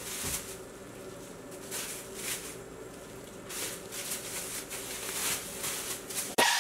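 A thin plastic bag crinkling and rustling in irregular bursts as roasted chiles are dropped into it, over a faint steady hum.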